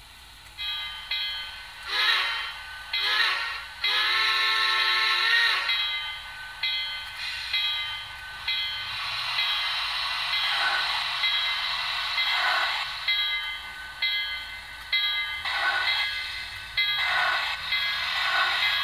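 ESU LokSound sound decoder playing steam locomotive sounds through a tiny Sugar Cube speaker in an N scale brass Santa Fe 4-8-4. The whistle sounds two short blasts and then one long one. After that comes a slow rhythm of exhaust chuffs as the engine moves off. The sound is thin, with almost no bass.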